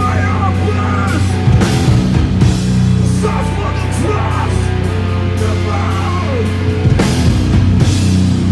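Live rock band playing an instrumental passage: sustained low guitar and bass notes under guitar lines, with bunches of drum hits about a second and a half in and again about seven seconds in.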